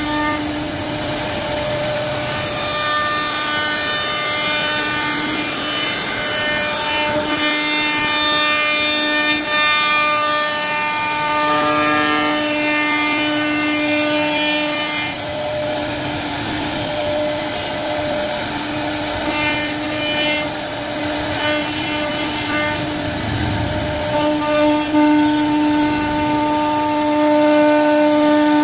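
CNC router spindle whining at a steady pitch as its bit routes a profile into a wooden frame, over the rushing noise of the cut. The tone changes for a few seconds near the middle, then settles back.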